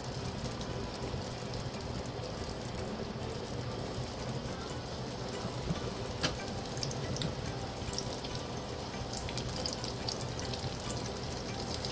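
Egg rolls deep-frying in hot oil in a cast iron skillet: a steady sizzle and bubbling, with a few light clicks, the clearest about halfway through.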